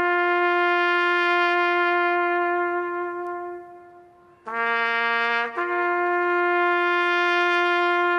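Brass bugle played by a soldier, slow and solemn: a long held note dies away about four seconds in, then a short lower note rises to another long held note.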